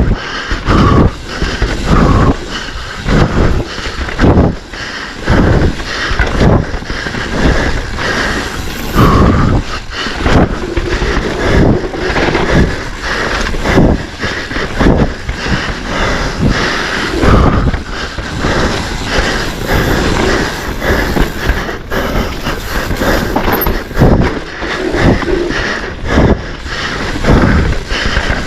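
Mountain bike running fast down a rough dirt trail: tyres on dirt, the bike's chain and frame clattering, with frequent irregular knocks and thumps from impacts.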